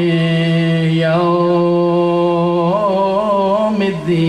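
A man chanting Arabic sermon words in long held notes, each syllable drawn out for seconds with small wavering ornaments. There is a short break for breath about four seconds in.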